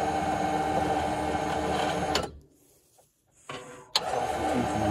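Electric winch motor on a side-by-side running as it spools in steel cable, a steady motor whine. It stops about two seconds in and starts again with a click about a second before the end.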